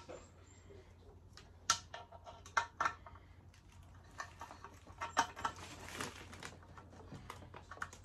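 Irregular small clicks and knocks of a toggle switch and its fittings being handled and pushed into place in the coffee grinder's metal housing, with a short scraping rustle about six seconds in.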